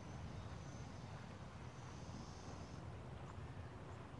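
Quiet outdoor ambience: a steady low rumble, with a faint high chirping in the first three seconds and a couple of faint ticks near the end.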